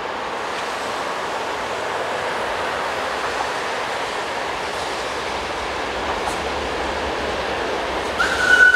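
Hr1 'Ukko-Pekka' steam locomotive approaching on the rails, a steady running rumble and hiss. Near the end its steam whistle starts blowing, one loud, steady, slightly rising tone.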